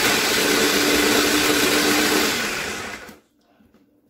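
Small electric food chopper running as it chops pitted cherries. Its motor gives a steady whir, then cuts off suddenly about three seconds in.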